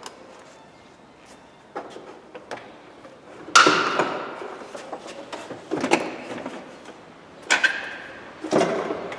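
Hollow knocks and clatter of a radiator and plastic fan shroud assembly being handled and fitted into place: a few light clicks, then several louder, ringing knocks from a little past a third of the way in.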